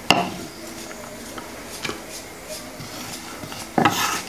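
Kitchen knife on a wooden chopping board while handling shredded cabbage: a sharp knock at the start, a few light taps, then a louder, brief scraping clatter near the end as the shreds are swept off the board.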